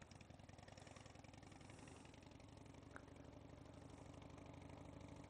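Faint Harley-Davidson motorcycle engine running at low speed, slowly growing louder as the bike comes closer, with one small click about three seconds in.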